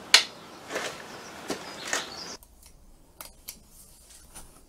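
Sharp clicks and knocks from hands working the action and controls of an electronic Daystate Air Wolf air rifle, the loudest right at the start. About halfway the room sound drops away and a few fainter clicks follow.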